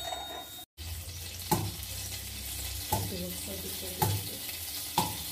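Water droplets sizzling and spitting in a hot aluminium kadai heating on a gas stove, over a steady low hum, with four short knocks.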